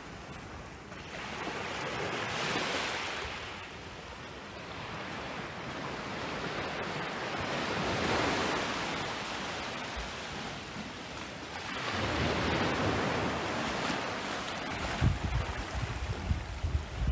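Small, calm-sea waves washing up on a sand and rock beach, the surf hiss swelling and fading three times. Near the end, wind buffets the microphone with low gusty thumps.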